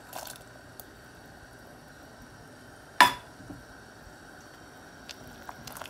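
Pot of vegetable soup at a rolling boil, giving a faint steady bubbling hiss. About three seconds in there is a single sharp clink that rings briefly, with a few small ticks near the start and end.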